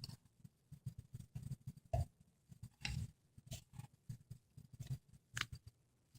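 Homemade flour-and-water slime being stirred and worked by hand, giving faint, irregular soft squishing sounds.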